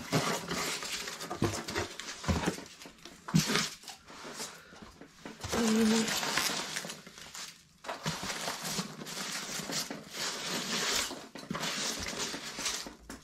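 Polystyrene packing peanuts rustling and clattering as they are scooped by hand out of a cardboard box and dumped, coming in irregular bursts with short pauses.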